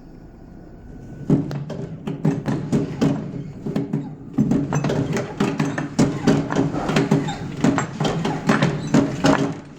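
Nautilus StairMaster stair-climber running, with a rapid, irregular knocking and clattering that starts about a second in and pauses briefly near the middle. The machine is listed as having an abnormal noise.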